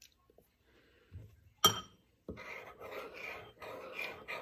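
A whisk clinks once against a mixing bowl, then whisks whipped-topping mix and milk by hand in rhythmic scraping strokes, a few a second.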